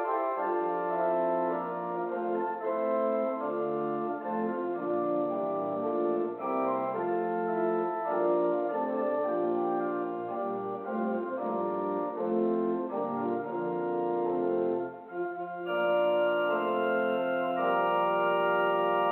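Organ music: held chords moving from one to the next, with a brief break about fifteen seconds in, after which the organ comes back fuller and brighter.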